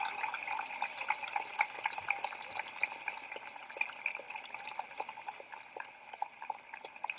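A large crowd applauding and cheering, the clapping thinning out and the whole sound fading steadily.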